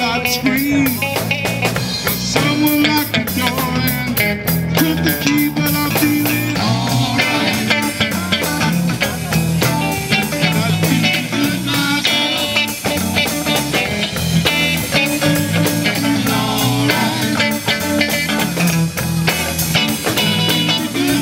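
Live band playing, with electric guitars over a drum kit keeping a steady beat.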